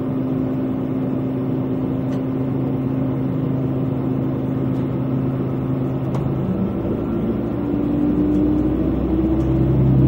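Diesel railcar (JR West KiHa 120) engine and running gear as the train pulls away from a station: a steady low drone that steps up in pitch and grows louder about six and a half seconds in as the train gathers speed.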